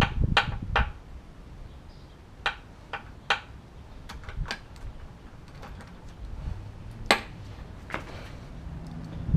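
Ratchet socket wrench clicking and clinking as it turns in a bolt holding an outboard motor's lower unit gear case: a quick run of sharp metallic clicks in the first second, then scattered single clicks.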